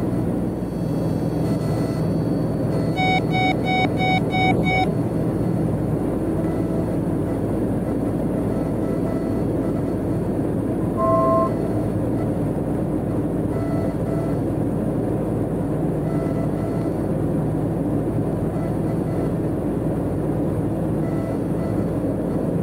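Cessna P210's piston engine and propeller droning steadily, heard inside the cabin. About three seconds in there is a quick run of six short electronic beeps, and near the middle a brief two-tone beep.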